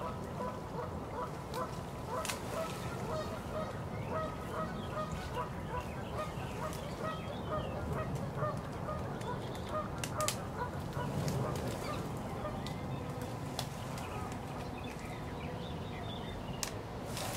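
A goose calling over and over in short honks, about two a second, over a steady low wind rumble, with a few sharp clicks.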